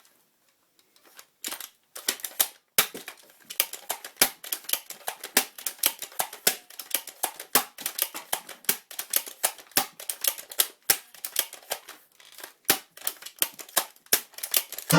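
Rapid, irregular plastic clicks and clacks, several a second, from a Nerf blaster being handled and worked, with a short lull about twelve seconds in.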